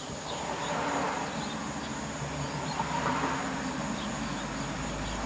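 Steady background hum and hiss, with a low rumble that grows louder over the last second or so.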